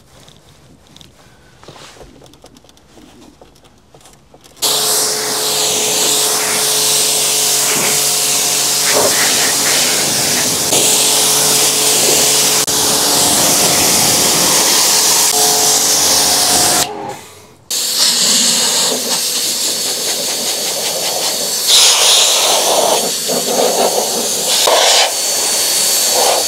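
Pressure washer spraying water onto a car's bodywork: a loud steady hiss over the hum of its pump, starting suddenly after a few quiet seconds. After a brief break, a car-drying air blower runs instead, blowing a loud rush of air with a thin high whine over the wet paint and glass.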